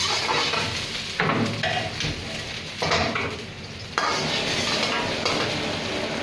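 Chopped vegetables sizzling and frying in hot oil in a pan, stirred with a spatula that scrapes and knocks against the pan three times.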